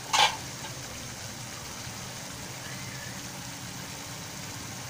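Metal tongs clank once against an aluminium wok just after the start, then a steady low rumble carries on under the simmering chicken.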